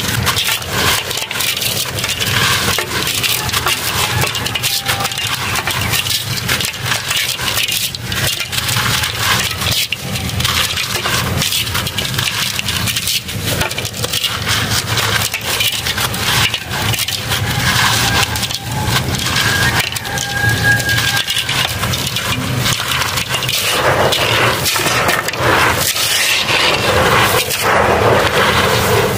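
Hands crushing and crumbling dry dirt clumps in a metal tub: continuous close-up gritty crackling and crunching, with grains and powder running through the fingers onto the pile.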